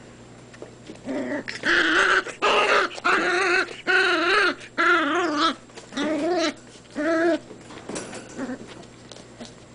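Four-week-old Irish Terrier puppy whimpering: a run of about eight short, whiny cries with a wavering pitch, which stop a couple of seconds before the end.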